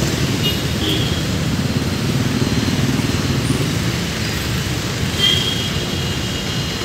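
Steady street traffic noise, a low rumble, with a few brief high-pitched tones about a second in and again after five seconds.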